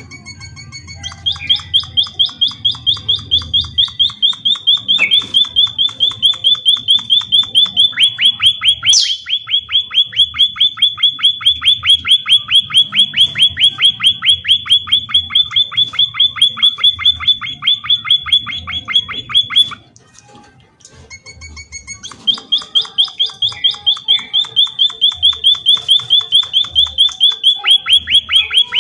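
Emprit (munia) singing: a long, fast trill of repeated high notes, about five or six a second, with a brief sharp rising sweep about nine seconds in. The trill breaks off about two-thirds of the way through and starts again a couple of seconds later.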